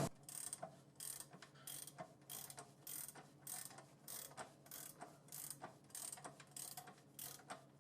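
Transmission jack lowering a 700R4 automatic transmission, making a faint, regular ratcheting click a little under twice a second.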